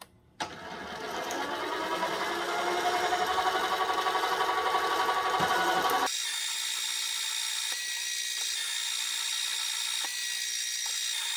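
Small metal lathe spindle and motor spinning up with a rising whine, then running steady. About six seconds in, the sound jumps to a sped-up, higher-pitched machining whine as the tool takes a turning cut along the rod.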